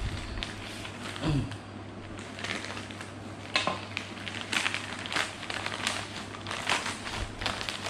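Plastic parcel packaging, a courier mailer and a clear plastic bag, being handled and pulled open, crinkling and rustling irregularly. Sharper, louder crackles come from about three and a half seconds in.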